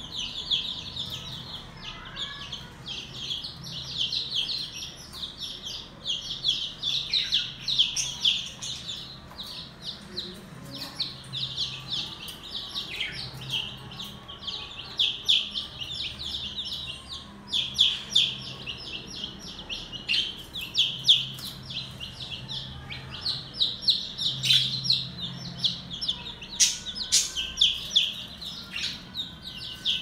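Several few-days-old chicks peeping: rapid, high-pitched peeps, many a second, coming in runs with short gaps.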